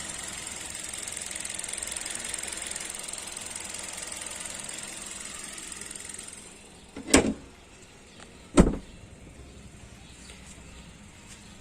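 Maruti Suzuki Dzire ZXI's 1.2-litre four-cylinder petrol engine idling warm with a steady hiss that quietens about six seconds in. Then come two loud thumps about a second and a half apart.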